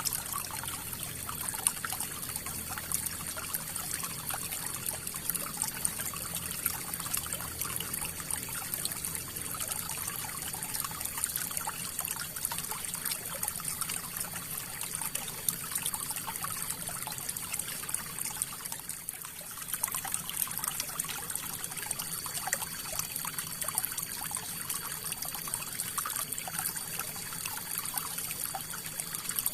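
River water flowing and trickling steadily, with a dense patter of small splashes.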